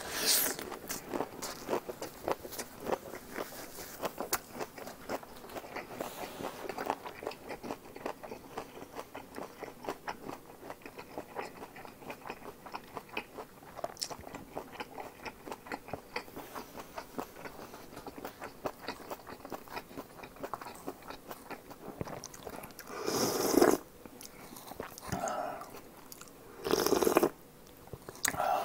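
Close-miked chewing of a mouthful of cold sliced pork trotters: a steady run of wet mouth clicks and smacks, several a second. Near the end come two louder, longer mouth sounds.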